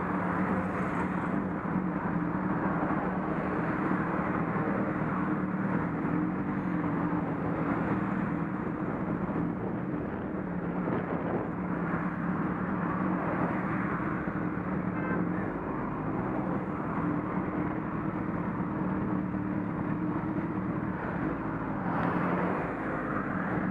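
Motorcycle engine running at a steady pace with wind and road noise rushing past, a constant drone that holds without pause.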